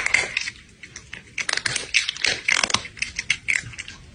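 Loud, irregular crunching, as of something hard being bitten and chewed: a short cluster of crunches at the start, a brief pause, then dense crunching from about a second and a half in.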